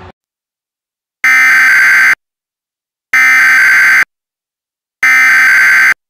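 Emergency Alert System SAME header data bursts: three identical harsh, buzzy digital bursts of just under a second each, about a second apart. This is the coded header that opens an EAS message, here for a Required Weekly Test.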